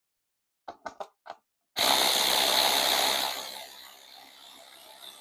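A few short clicks, then a cordless power driver whirs loudly for about a second and a half and tapers off, backing a T25 Torx windscreen bolt out of a BMW R1300GS Adventure.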